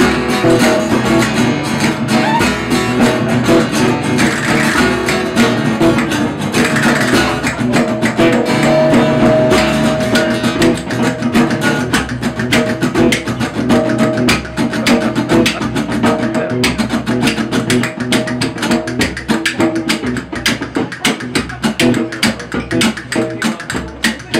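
Live blues-rock band playing a passage without singing: strummed acoustic guitar over a bass line, with fast rhythmic ticking more prominent in the second half.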